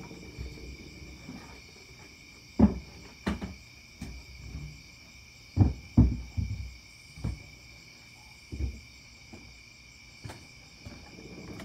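Crickets trilling steadily in a night insect chorus, with a series of dull thumps and knocks of things being moved and bumped, the loudest around the middle.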